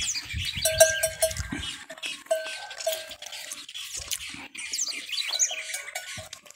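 Farmyard animal and bird calls: many short high chirps over a repeated short mid-pitched call that comes in clusters. A low muffled rumble runs through the first second and a half.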